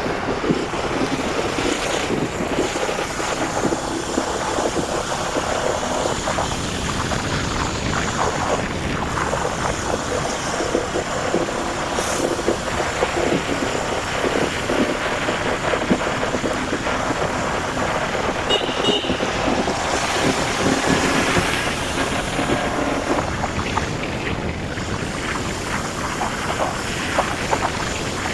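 Wind buffeting the microphone of a moving motorcycle, with the bike's engine running steadily beneath it.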